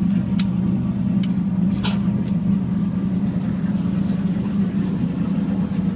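The twin inboard motors of a 1981 Chris Craft Catalina idling steadily, freshly started. A few short sharp clicks sound over the drone in the first couple of seconds.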